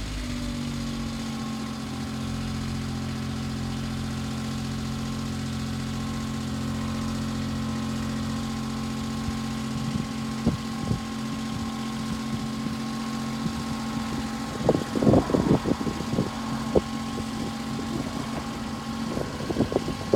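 Bucket truck's engine running steadily while it powers the boom hydraulics, its note shifting slightly near the start. A few short, higher-pitched sounds come about three quarters of the way through.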